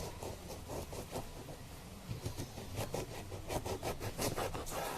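A run of irregular sharp clicks and scratchy scrapes from hands working with kitchen ingredients and utensils, coming faster and louder in the second half.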